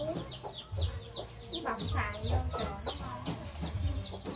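Chickens clucking, with a quick run of high falling peeps, about four or five a second.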